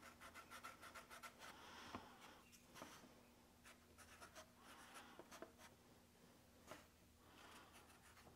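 Felt-tip marker scratching faintly across a cardboard template in quick, short strokes as an outline is traced, with a pause in the middle.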